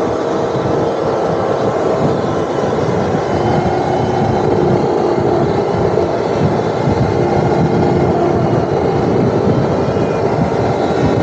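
Steady wind and road noise from an electric motorbike riding at speed, with a faint steady whine under it.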